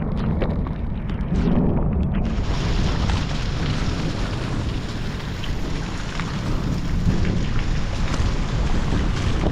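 Heavy rain falling as a steady hiss, with wind buffeting the microphone in a low rumble. The rain's hiss suddenly grows fuller and brighter about two seconds in.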